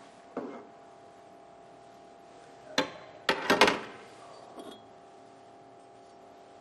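Metal exhaust pipes knocking and clinking lightly as gloved hands pick them up off a plastic cart top: a short knock near the start, a cluster of knocks around the middle and a small one shortly after, over a faint steady hum.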